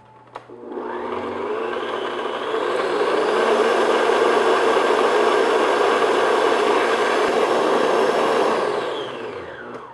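Electric stand mixer switched on with a click, its motor speeding up to high speed over the first couple of seconds. The flat paddle beater whips eggs and sugar in a glass bowl with a steady whir. Near the end the motor winds down and stops.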